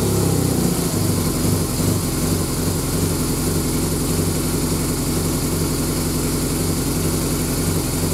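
BMW R1200GS boxer-twin engine idling steadily just after being started.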